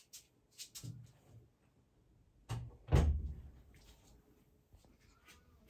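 A few light knocks and clicks, then two heavier thumps about half a second apart near the middle, the second the louder.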